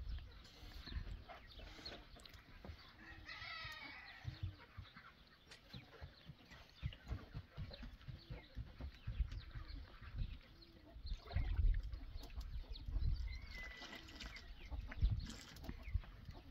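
Chickens clucking in short repeated calls, with now and then a longer, higher wavering call. Low soft knocks and rustling come from flour being mixed by hand in a metal basin.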